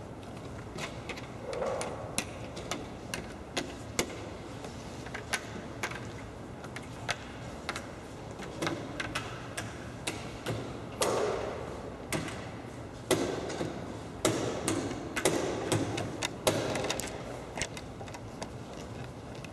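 Irregular sharp clicks and clacks of draughts pieces being set down on boards and clock buttons being hit during blitz play. The clicks come faster and louder from about halfway, with several heavier knocks.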